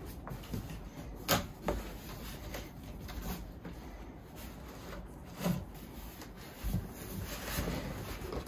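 A large cardboard box being handled, opened and tipped over: rubbing and scraping of cardboard with several sharp knocks, the loudest about a second in.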